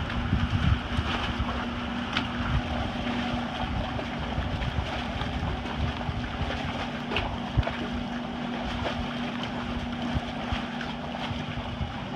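Gusty storm wind on the microphone over choppy water lapping around a swamped fishing boat on its lift, with a steady low hum underneath and a few sharp knocks.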